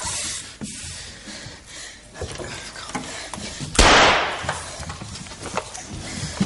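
A single sharp explosive bang about four seconds in, from an on-set effect during an action take, trailing off in a hiss over about half a second. Fainter knocks and clicks come before and after it.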